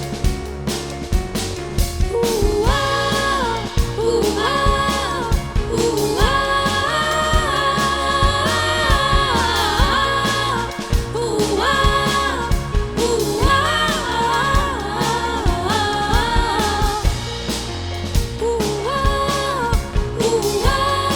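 Synth-pop band music: a drum kit keeping a steady beat under a bass line and keyboard and Moog synthesizer parts, with a wordless sung melody entering about two seconds in.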